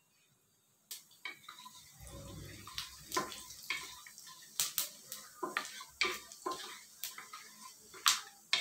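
Wooden spatula stirring cumin seeds and a cinnamon stick in ghee in a stainless-steel kadai. It makes irregular light knocks and scrapes against the metal, starting about a second in.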